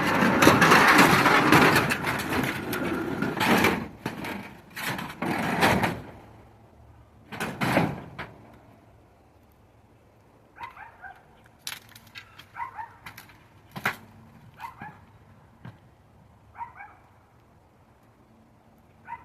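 Noisy handling and knocking of scrap items for several seconds, then a few sharp knocks, then a dog barking faintly several times, a second or so apart.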